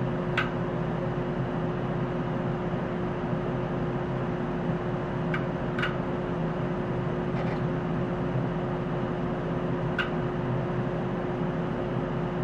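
Steady whirring hum of the Tektronix TDS 510A oscilloscope's cooling fan during its power-up hardware checks, with a few light clicks: about half a second in, twice around five to six seconds, and once at ten seconds.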